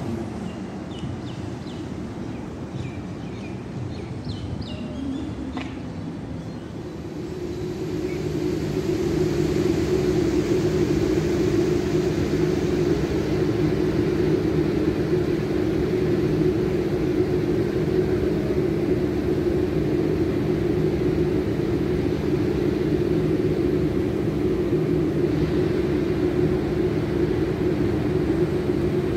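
Loud, steady outdoor rumble of wind and road traffic in a sandstorm, with a steady low hum under it. The noise swells about seven seconds in and then holds. A few short high chirps come in the first few seconds.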